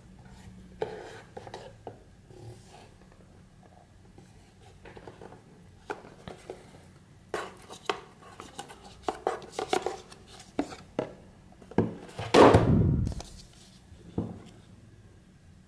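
Cardboard packaging handled by hand: scattered taps, clicks and rubbing scrapes from a rigid black Ray-Ban presentation box and its card sleeve. A louder scrape lasting about a second comes near the end.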